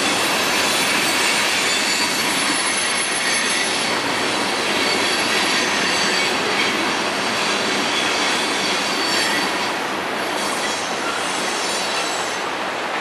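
Fully loaded CSX coal train rolling past close by: a steady, loud rumble and rush of the cars, with thin high squeals from the wheels on the rail. It eases off a little near the end.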